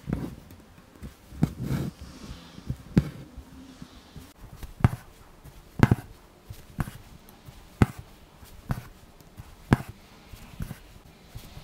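Embroidery needle punching in and out of stretched linen fabric, giving sharp taps about once a second. Between the taps, a soft hiss as the thread is drawn through.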